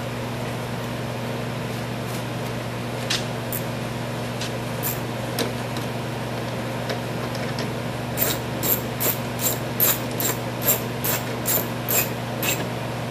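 Screws being driven in by hand with a screwdriver to fasten a snowblower's console cover: a few scattered clicks, then from about eight seconds in a run of quick, even clicks, about three a second, over a steady low hum.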